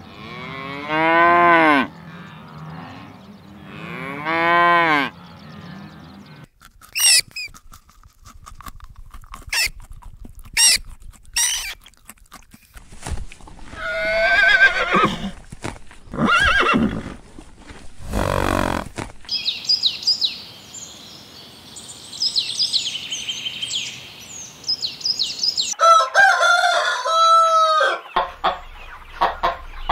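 Cattle mooing twice, two long calls that rise and fall in pitch. Shorter animal calls follow through the middle, and chickens clucking near the end.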